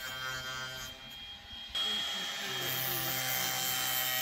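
Background music, cut off about two seconds in by a steady, louder whirring with a constant whine: a cordless drill driving screws into the plywood walls of a wooden coop.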